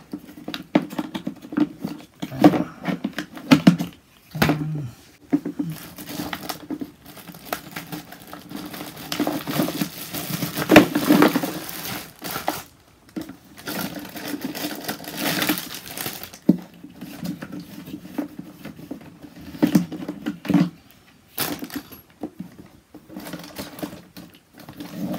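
Clear plastic bag crinkling and rustling as parts are pulled out of a plastic hose reel case, with scattered clicks and knocks of hard plastic being handled. The crinkling is loudest about ten and fifteen seconds in.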